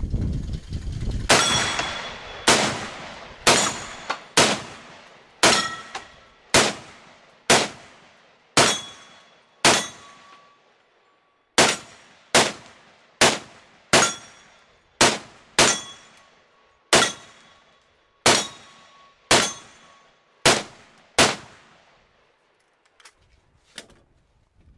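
Semi-automatic SKS rifle (7.62×39 mm) in a bullpup stock, fired about twenty times at a steady pace of roughly one shot a second, with a short pause near the middle. Each shot rings on briefly. The firing stops a few seconds before the end, leaving only a few faint clicks.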